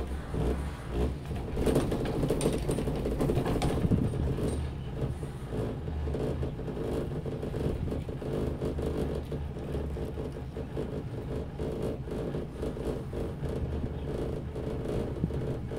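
Detachable gondola cable car riding its haul rope, heard from inside the cabin: a steady low rumble and whir, with a burst of clattering about two seconds in as the car passes over a pylon's sheave rollers.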